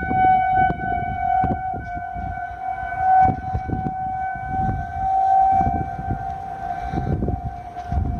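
Outdoor tornado warning siren sounding a test, held at one steady pitch.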